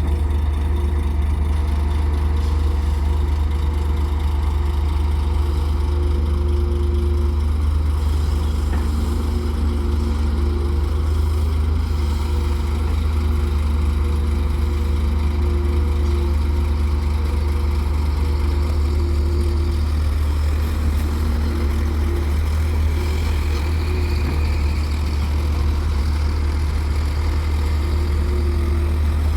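Heavy diesel engine running steadily at a constant pitch, with a deep low hum.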